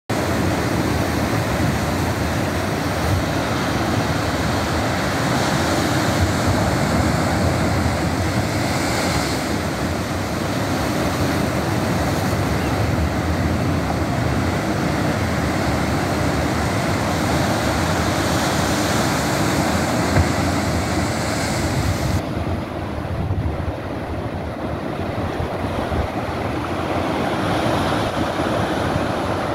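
Ocean surf breaking and washing over rocks and a beach, a steady rushing noise mixed with wind buffeting the microphone; the high hiss thins out suddenly about two-thirds of the way through.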